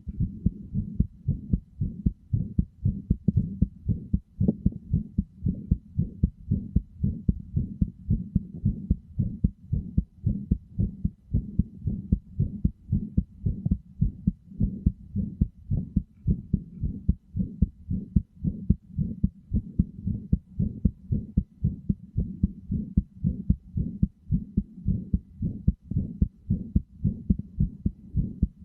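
Heartbeat beating at a steady, regular rhythm of low, soft-edged beats.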